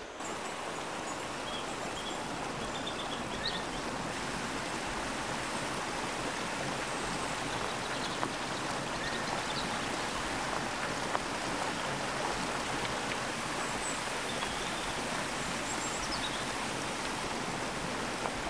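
A mountain stream rushing over boulders: a steady, even rush of water.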